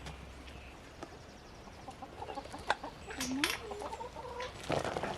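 Chickens clucking, with a cluster of short calls and a swooping call in the second half.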